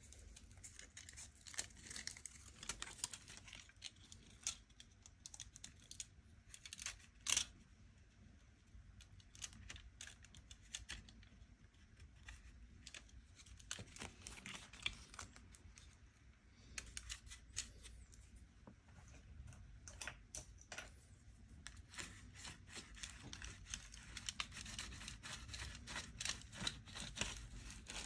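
Close, irregular scratching and rubbing with many small clicks and taps, as of hands working on a guitar during a setup; one sharper click stands out about seven seconds in.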